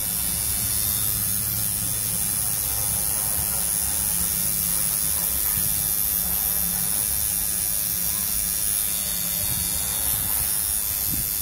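Coil tattoo machine buzzing steadily while its needle works lettering into forearm skin.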